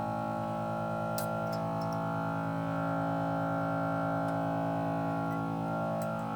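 Background music of sustained, steady synthesizer-like tones, with a couple of faint clicks.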